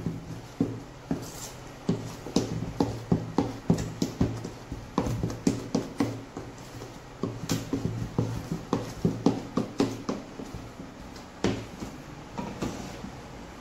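Wooden spatula beating cake batter by hand in a mixing bowl: irregular knocks and slaps, about two or three a second, as the spatula strikes the bowl, over a steady low hum.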